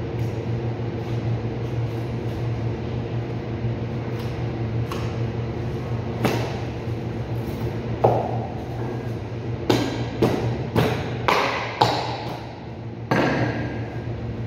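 Steady hum of a cold room's refrigeration unit, with a run of sharp knocks and thuds in the second half as beef pieces and a butcher's knife are handled on the cutting table during deboning.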